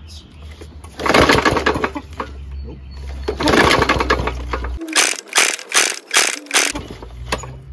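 Push-mower engine's recoil starter pulled twice, the small engine cranking over without firing, followed by a few quick sharp clacks. The engine fails to start.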